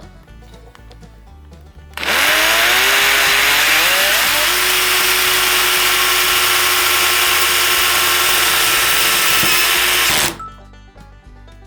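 Cordless power tool motor starting about two seconds in, its pitch rising for a couple of seconds as it spins up, then running at a steady speed for about six seconds before stopping abruptly. Quiet background music plays underneath.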